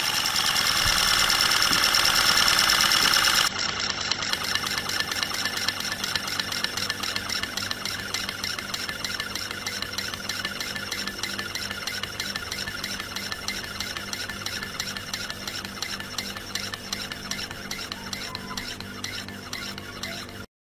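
Model Comber rotary steam engine running off its supply hose: a loud hiss for about the first three seconds, then a sudden change to a quieter, fast, even rasping beat of the spinning engine that slowly grows fainter and cuts off near the end.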